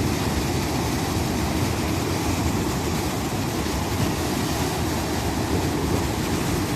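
Steady rumble of wind buffeting the microphone over the wash of surf.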